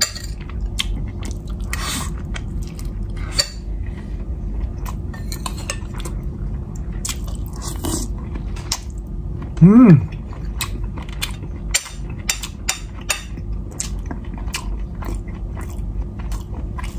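Metal spoon and fork clicking and scraping against ceramic plates, with chewing, over a steady low hum. A short hummed "mm" comes about ten seconds in.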